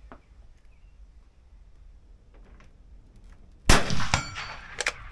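A single scoped bolt-action rifle fired once about three and a half seconds in: one sharp, loud shot with a ringing tail, followed by a few sharp metallic clicks near the end.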